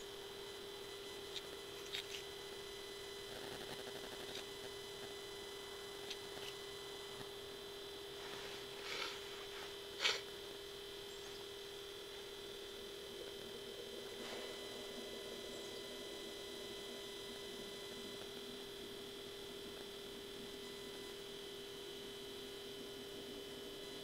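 Steady electronic hum with a few faint clicks and one louder click about ten seconds in.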